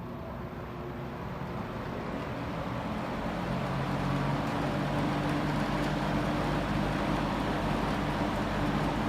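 JCPenney 9705 (Lakewood-built) box fan with a McMillan motor and metal blades running, growing louder over the first few seconds as it speeds up, then holding steady with a low hum and its grilles vibrating.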